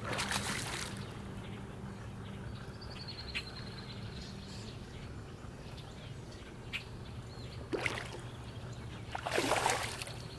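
A fishing lure splashing into the lake as it is cast, once at the start and again about nine seconds in, with a smaller splash near eight seconds. A bird calls briefly about three seconds in, and a steady low hum runs underneath.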